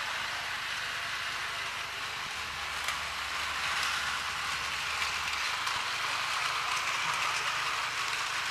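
Battery-powered Plarail toy train, the Donald Duck Marine Shuttle, running on blue plastic track: a steady, even whirring hiss of its small motor, gears and wheels, with a few faint clicks.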